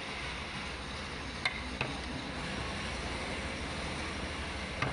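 A wooden mallet tapping a small carving chisel into wood: two sharp taps about a second and a half in, and one more near the end, over a steady background hiss.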